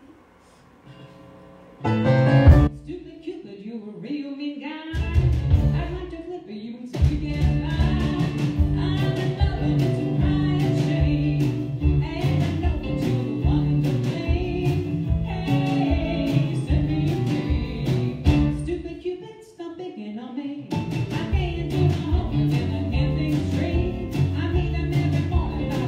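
Live band of electric bass, keyboard, drum kit and electric guitar starting a song about two seconds in, with a woman singing over a steady beat. The music drops away briefly about three-quarters of the way through and then comes back.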